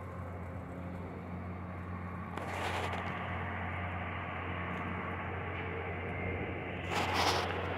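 Distant diesel heavy mining equipment (a hydraulic excavator and drill rig) running, a steady low drone, with two brief louder rushes of noise about two and a half seconds in and near the end.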